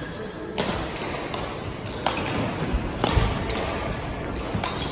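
Badminton rackets striking a shuttlecock back and forth in a rally: a string of sharp pings and knocks, roughly one every second.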